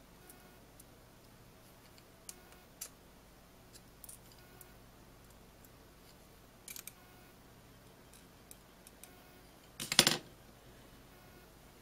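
Small, sharp clicks and taps from the metal flip-key blade hinge and a thin pin tool being handled, with a louder, brief clatter about ten seconds in.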